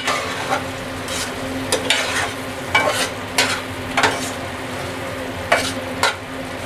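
Metal spatula stirring and scraping thick tomato chutney around an aluminium pot in irregular strokes, with a short lull just past the middle. Under it the sauce sizzles steadily as its remaining water cooks off.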